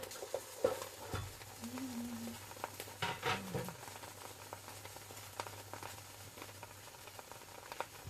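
Bánh xèo batter frying in hot oil in pans, a steady sizzle, with a few scattered clicks and knocks.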